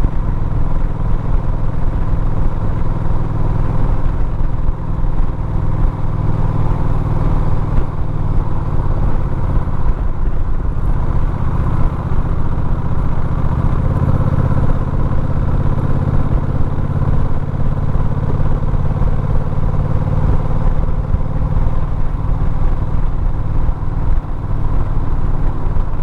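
Vehicle engine running steadily with road noise, heard from on board while climbing a mountain road. The engine note eases off about a third of the way through and picks up again around the middle.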